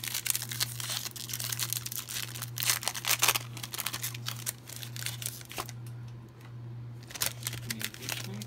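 Foil booster-pack wrapper of Pokémon trading cards being torn open and crinkled by hand: dense crackling for the first five seconds or so, then a few scattered crinkles, over a steady low hum.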